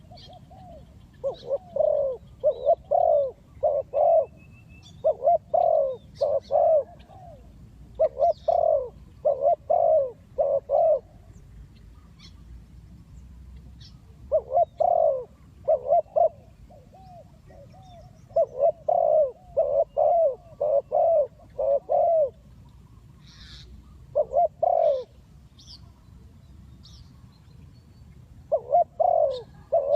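Spotted dove cooing: phrases of three to five coos, repeated with pauses of a few seconds between them. Faint high chirps of small birds in the background.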